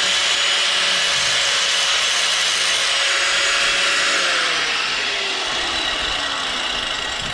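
Angle grinder running at full speed on a steel trailing arm, grinding out the knuckle mount where the bushing fit too tight. About four and a half seconds in it is switched off, and its whine falls as the disc spins down.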